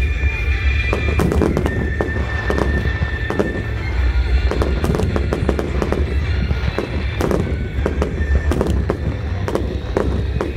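Aerial fireworks shells bursting in quick succession, many sharp bangs and crackles, with music playing alongside.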